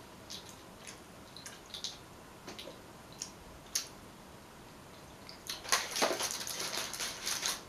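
Crinkling plastic wrapper on a small food item being handled, a dense crackle that lasts about two seconds and starts about five and a half seconds in. Before it, a few faint scattered clicks.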